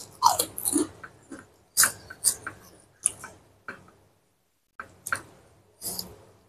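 Close-up mouth sounds of someone eating rice and boiled cassava leaves by hand: a string of short, wet chewing and lip-smacking clicks with silent gaps between them.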